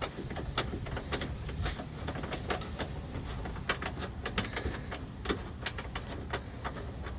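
Scattered light metallic clicks and taps as a suspension bolt is threaded in by hand rather than with an impact wrench, over a steady low hum.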